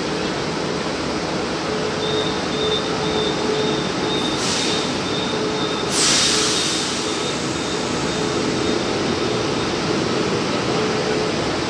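KTM Komuter electric train standing at the platform with its doors open, its onboard machinery and air-conditioning running with a steady noise and a faint whine. About four and a half and six seconds in come two short hisses of air, the second louder.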